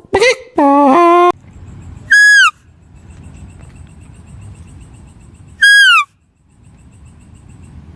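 Animal calls: a lower call with a bending pitch that ends about a second in, then two short, loud, high calls about three and a half seconds apart, each holding its pitch and dropping at the end.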